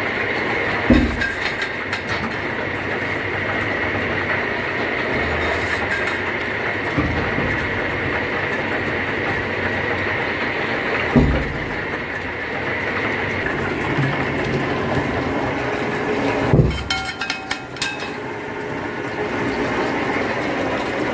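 Tractor engine powering a borewell drilling rig, running steadily and loudly. Three heavy knocks stand out above it: about a second in, about eleven seconds in, and about three-quarters of the way through.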